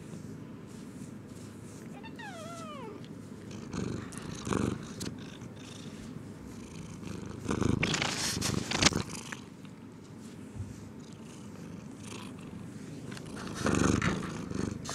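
Domestic cat purring steadily close to the microphone, a contented purr while being petted, with one short meow falling in pitch about two seconds in. Its fur brushes against the microphone in a few rustling bursts, the loudest about eight to nine seconds in.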